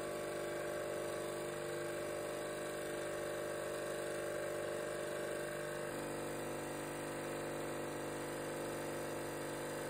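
Bench grinder fitted with a cloth buffing wheel running steadily, a motor hum, while wax and a stabilized-wood knife handle are held to the spinning wheel. The hum changes tone slightly about six seconds in.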